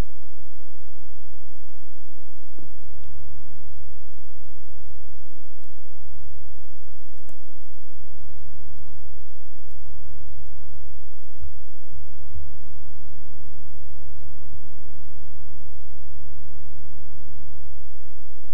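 Steady electrical mains hum, a loud low buzz with fainter steady tones above it, and two soft low bumps about two-thirds of the way through.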